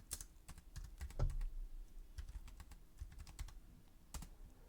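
Computer keyboard typing: a scatter of short, uneven key clicks, one a little louder about a second in.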